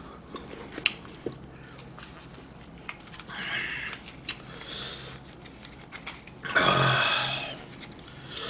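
Eating and drinking noises of a person drinking from a bowl held to the mouth: a short slurp about three and a half seconds in, a few small clicks, and a louder breathy exhale about a second long near the end.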